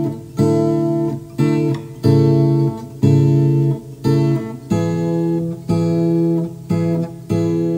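Background music: an acoustic guitar strumming chords in a steady, even rhythm, each chord ringing and fading before the next.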